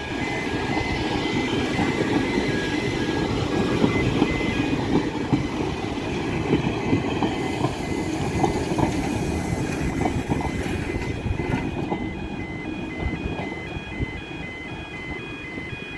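Manx Electric Railway electric tram car and trailer rolling past with a rumble and wheels clicking over the rail, the rumble easing as it draws away after about 11 s. A level crossing warning alarm beeps in a repeating pattern throughout, plainest near the start and end.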